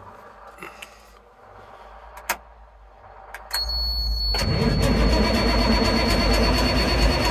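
Cold start of an M925A1 five-ton truck's Cummins NHC-250 straight-six diesel: a couple of switch clicks, a short crank at about three and a half seconds, and the engine catching just under a second later and running on steadily. A steady high-pitched tone sounds from the start of cranking onward.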